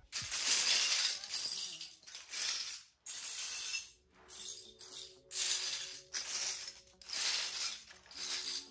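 Loose plastic LEGO bricks clattering as hands rummage and sift through a pile of them, in a string of short rattling bursts about once a second.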